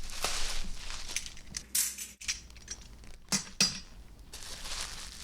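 Plastic packaging rustling and crinkling as lightsaber hilts are unwrapped, with two sharp clicks a little over three seconds in.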